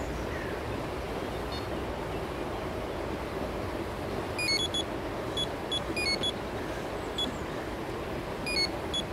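Electronic carp-fishing bite alarm beeping from about four seconds in: short, flat beeps at a few different pitches, in irregular runs. A steady background rush runs underneath.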